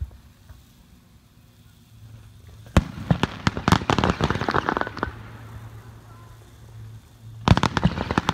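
Aerial fireworks shells bursting: a sharp bang about three seconds in, followed by a quick run of crackling pops for about two seconds. Another bang and more crackling come near the end.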